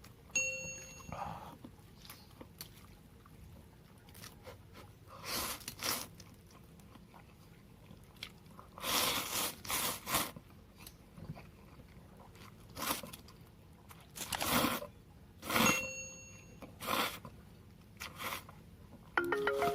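A person eating noodle soup: a series of short, noisy eating sounds (slurping and chewing), each a second or less, with brief ringing clinks near the start and about three-quarters through.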